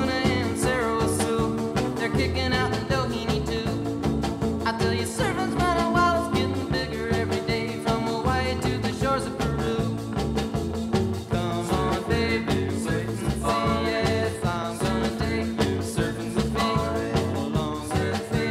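Background music: an upbeat surf-rock song with a steady beat.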